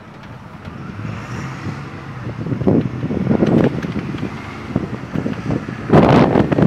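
Open-top tour bus on the move, heard from its top deck: engine and road noise, with wind buffeting the microphone in irregular gusts, strongest about six seconds in.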